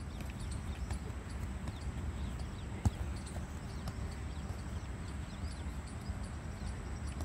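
A football kicked on a grass pitch: one sharp kick about three seconds in and a few fainter touches of the ball, over a low steady background hum.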